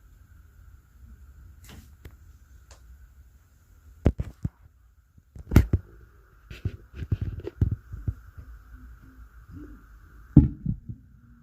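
Irregular heavy thuds and knocks from an upstairs apartment, heard through the ceiling. They come in clusters of several quick blows, and the loudest fall near the middle and near the end.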